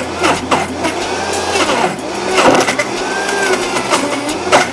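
High-powered countertop blender running hard, crushing frozen strawberries, bananas and dates into a thick ice-cream mix while a tamper pushes the fruit down onto the blades. The motor's pitch wavers up and down as the load shifts, with scattered clicks from the chunks hitting the jar.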